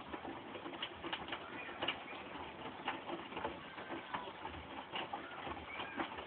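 Hotpoint WMUD962P front-loading washing machine in its cotton main wash, the drum tumbling a wet load: an irregular run of clicks, knocks and splashes as laundry and water drop inside the drum.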